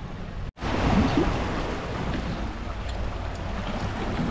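Wind buffeting the microphone over the rushing of the sea along a rocky coast, with faint voices. The sound cuts out for an instant about half a second in.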